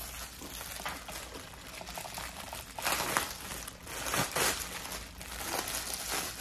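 Clear plastic packaging bag crinkling and rustling in irregular bursts as a plush toy is pulled out of it, loudest about three and four seconds in.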